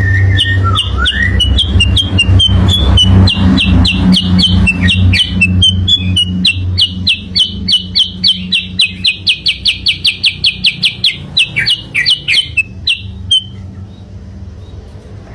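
Kutilang sutra bird song: sharp high chirps that settle into a fast, even run of repeated notes, about four to five a second, stopping suddenly about thirteen seconds in. A steady low hum runs underneath.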